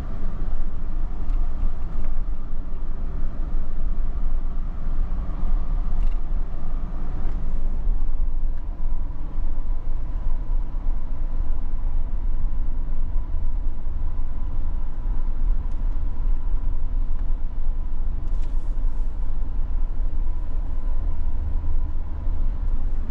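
Steady low rumble of a car's engine and tyres heard from inside the moving vehicle, with a faint steady high tone joining about a third of the way in.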